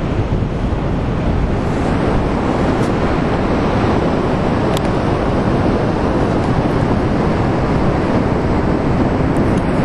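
Wind buffeting the camera microphone in a steady loud rush, mixed with the sound of breaking ocean surf.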